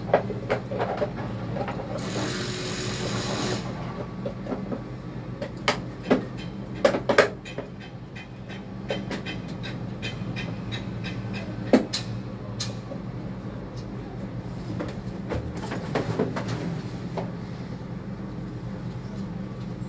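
Construction-site noise: a steady low machine hum with scattered knocks and metal clanks, and a hiss about two seconds in that lasts a second and a half.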